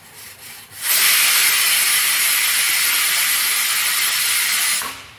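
Pressure cooker whistle: the weighted valve on the aluminium cooker lifts and releases steam in a loud, steady hiss. It starts sharply about a second in, holds for about four seconds, then dies away. It is the sign that the cooker has reached full pressure, one of the whistles counted while cooking the mutton.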